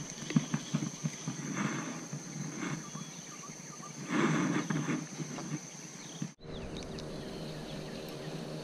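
Close handling noise from a spinning rod and reel: a few light clicks as the reel is wound, then rustling, loudest about four seconds in, as snagged weed is handled off the line. A steady high-pitched insect whine runs underneath and stops abruptly about six seconds in.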